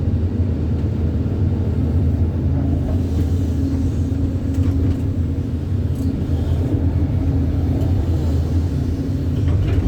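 Diesel engine of an excavator running steadily under work, a low drone.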